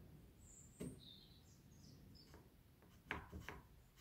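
Near silence with faint handling sounds: a light tap about a second in and a few small clicks near the end as a wooden block is fitted against the jig's brass stop.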